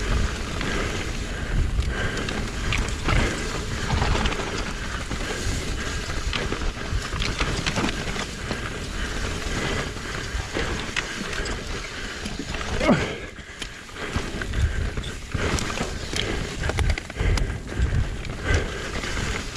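Mountain bike ridden down a rough enduro trail: tyres rolling over dirt and rocks, with the bike rattling and knocking.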